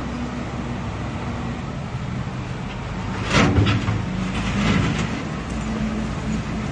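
KOBE wheel loader's diesel engine running steadily, with a loud scraping clatter about halfway through and a smaller one after it as the steel bucket digs into the ground and rubbish.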